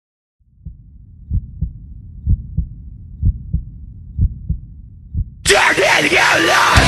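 Heartbeat sound effect: low, muffled lub-dub thumps about once a second over a low rumble. About five and a half seconds in, a sudden loud, harsh sound with a wavering pitch cuts in over it.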